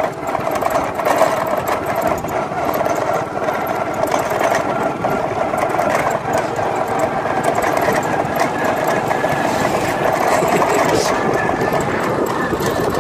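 Small engine of the vehicle carrying the camera running steadily while on the move, with wind and road noise.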